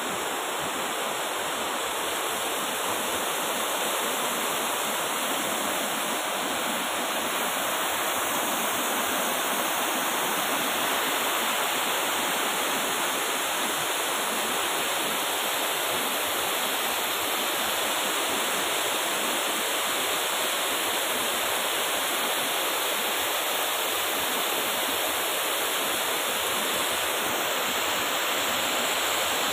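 Water of a shallow stream rushing over flat rock slabs and small cascades: a steady, even rush that does not change.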